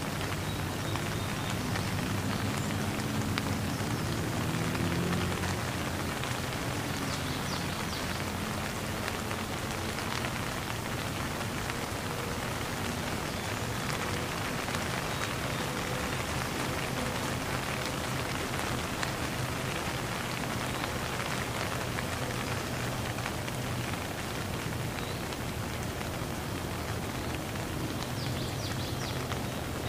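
Steady rain falling and splattering on a wet surface, an even hiss of many drops at a constant level.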